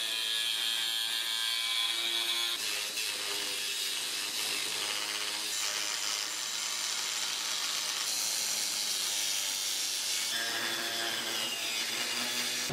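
A power cutoff wheel cutting through 1/4 inch steel plate: a steady high grinding hiss with a motor whine whose pitch shifts as the load changes, the sound changing abruptly several times.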